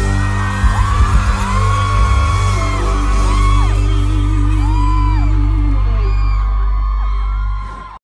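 A live rock band holds a sustained closing chord over low bass notes, with drum hits in the first second or so. Many people whoop and scream over it, and the sound fades away near the end.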